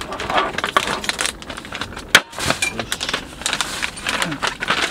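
Plastic vacuum pack being handled and cut open with a knife: crinkling and a run of small clicks, with one sharp snap about two seconds in.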